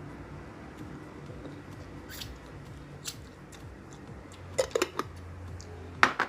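Close-miked eating sounds: biting into and chewing unripe green mango, heard as sharp wet clicks and crunches. The loudest is a quick cluster of three about four and a half seconds in, and a pair near the end.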